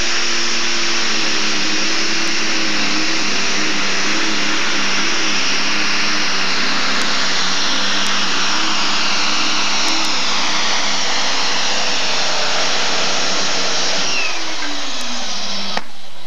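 Super stock pulling tractor's turbocharged engine running flat out under heavy load as it drags the weight-transfer sled down the track, a loud, wavering drone. Near the end the engine's pitch falls as it lets off at the finish.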